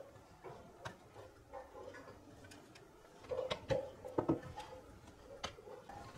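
Scattered small clicks and knocks of a Tronsmart T6 Pro Bluetooth speaker's plastic housing as a metal pry tool levers its end cap and outer shell apart. The loudest cluster of clicks comes about three and a half to four and a half seconds in.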